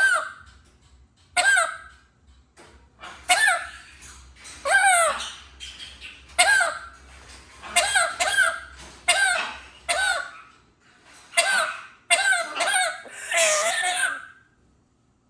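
A pet bird giving a string of short, harsh, cough-like calls, about a dozen, several of them sliding down in pitch. The owner says the cough-like sound is not a sign of illness: the bird is healthy.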